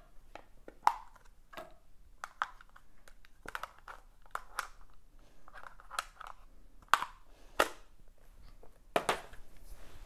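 Scattered clicks, taps and light rustling of small objects being handled and set down on a desk, with a few sharper knocks in the second half.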